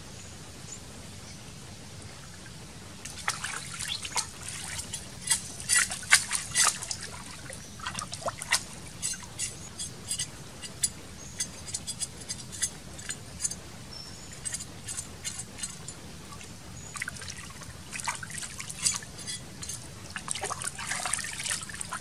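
Water splashing and dribbling in irregular bursts as a raw pig's head is rinsed by hand in a shallow river and lifted out, with water running off it. The bursts start about three seconds in, ease off for a few seconds in the middle, then pick up again. Under them runs a steady low river noise.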